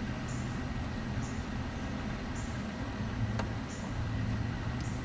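Ford F-350's diesel engine idling steadily, with a faint short high chirp about once a second and a couple of light clicks.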